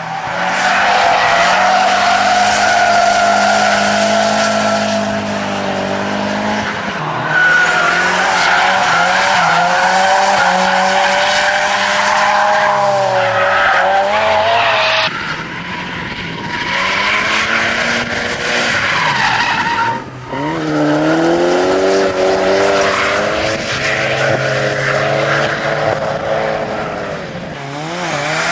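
Nissan S13 hatchback drift cars sliding through corners: the engines rev up and down hard under steady tyre squeal. The sound breaks off and changes abruptly a few times as different passes are cut together.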